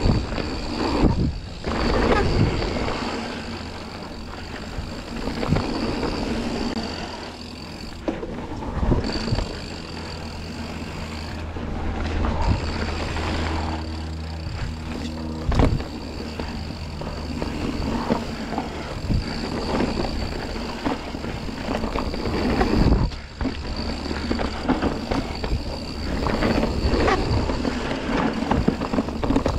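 Mountain bike ridden fast down a dirt forest singletrack: a continuous rumble of tyres and wind, with knocks and rattles as the bike goes over bumps and a few heavier thumps. A steady high buzz runs under it and cuts out a few times.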